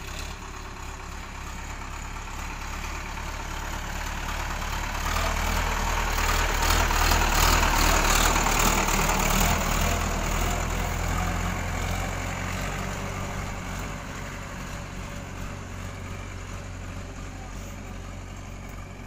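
Sonalika DI-60 RX tractor's diesel engine running as the tractor drives up, passes close by and pulls away. The engine sound swells to its loudest about seven to nine seconds in, then fades steadily.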